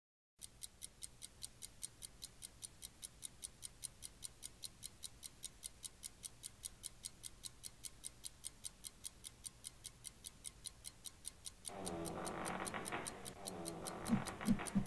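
Clock ticking, fast and even, several ticks a second, as a sound effect for waiting. About twelve seconds in, a louder musical sound effect with several tones joins it, with a few short low blips near the end.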